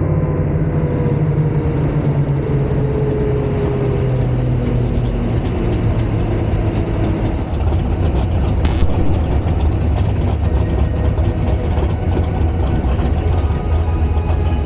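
Drag race car's engine idling steadily with a deep, even rumble. A single sharp click about nine seconds in.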